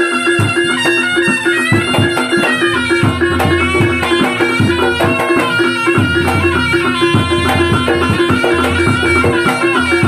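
Reog Ponorogo accompaniment music: a reedy slompret melody wavering over quick drumming and steady held gong tones.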